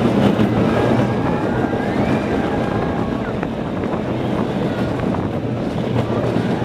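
Zierer Tivoli family roller coaster train running along its steel track, heard from on board: a steady rumble of the wheels on the rails, with wind on the microphone.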